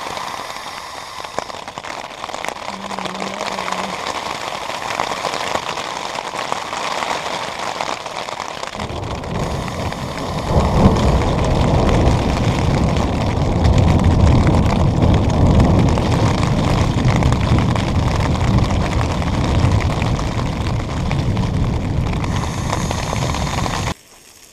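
Storm rain and wind beating on the fabric of a backpacking tent, heard from inside it. About nine seconds in a deep, heavy rumble joins and stays loud, then everything cuts off suddenly near the end.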